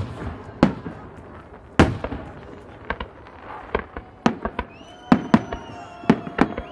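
Fireworks display: aerial shells bursting in an irregular string of sharp bangs, about a dozen, with crackling between them. The bangs come thicker toward the end, and a high steady whistle sounds alongside them from about two-thirds of the way in.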